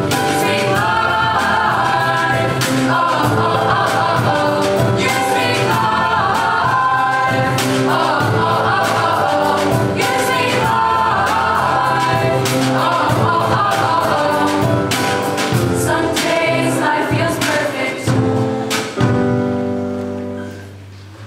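Youth choir singing with keyboard and drum-kit accompaniment, the drums striking steadily through the song. Near the end the song closes on a long held final chord that fades away.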